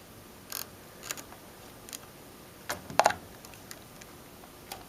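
A few light clicks and scrapes as multimeter test probes are handled and seated in the slots of a wall outlet. The sharpest is a quick pair of clicks about three seconds in.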